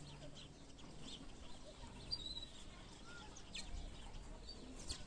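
Faint, sparse chirps from small songbirds: a few short, high single notes scattered about a second apart over a low outdoor background.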